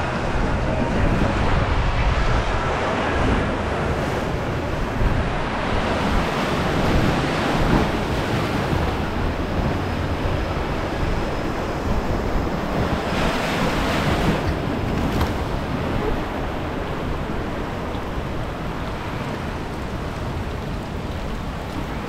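Rushing, churning whitewater of a river rapids ride heard from inside the raft, a steady noisy wash with wind on the microphone. A louder surge of splashing water comes for a second or so a little past the middle.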